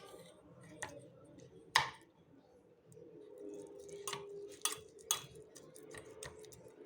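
A fork mashing boiled garlic cloves in olive oil in a small saucepan: irregular clicks and scrapes of the fork against the pan, the sharpest a little under two seconds in and a few more between about four and five seconds.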